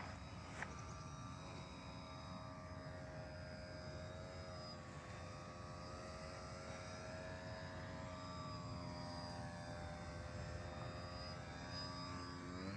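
Foamboard P-51 Mustang RC plane's motor and propeller in flight: a steady whine that drifts slightly in pitch as the plane flies around.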